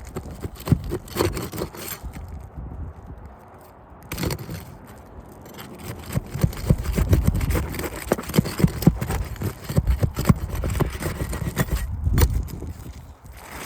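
Scraping, rustling and irregular knocking of an asphalt architectural shingle being pushed and worked into place under the overlapping shingle course, busiest in the second half.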